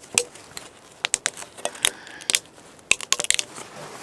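Thin flexible metal stove pipe clicking, crinkling and scraping as it is pushed and twisted down over a wood stove's flue collar. The pipe's bent, uneven end won't seat. Irregular sharp taps and crackles come in clusters, with one brief metallic ring about halfway through.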